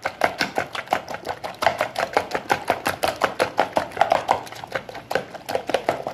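A spoon beating eggs in a plastic bowl: rapid, steady clicking and tapping of the spoon against the bowl, several strokes a second.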